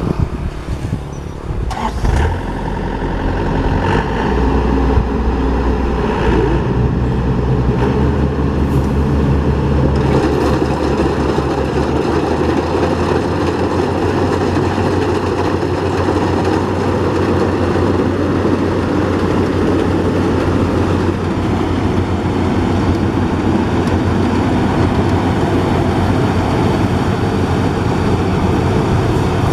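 Yanmar AW82V combine harvester running. Its engine sound builds about two seconds in, then holds steady and loud.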